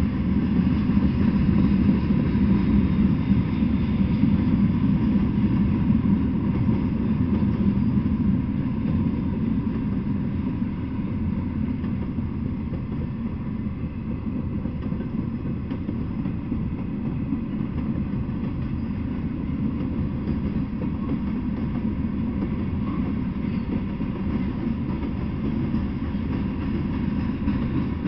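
Freight train cars rolling past on the track, a steady low rumble that is a little louder for the first several seconds and then eases slightly.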